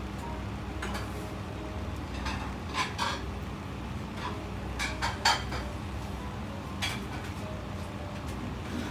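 A few scattered light clinks and taps, like glassware or utensils being handled, over a steady low hum.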